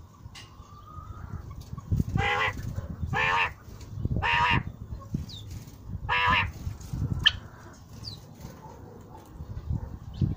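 Male common quail giving its mating call: four loud, short calls, three about a second apart and a fourth after a pause. A single sharp click comes just after the last call.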